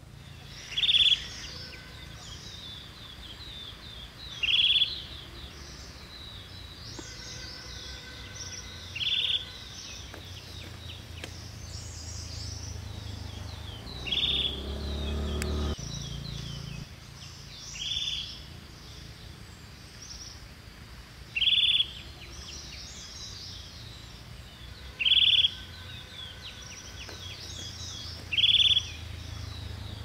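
Small birds calling: one bird gives a loud, short call eight times, about every three to four seconds, over the softer, steady chirping and chatter of other birds. A low rumble swells in the middle.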